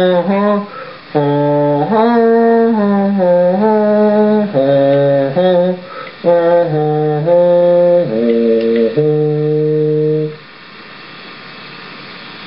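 A slow melody of long held notes, each steady in pitch, in a chant-like or hummed tone, stopping about ten seconds in. After it only a steady background hiss remains.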